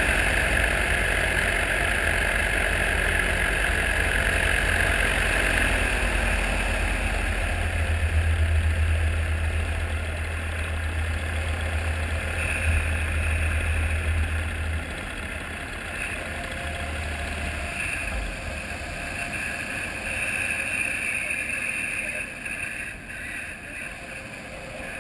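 Paramotor engine and propeller running in flight with wind rushing past; the engine's low drone drops back about fifteen seconds in and fades out by about eighteen seconds as the wing glides down to land, leaving mostly wind.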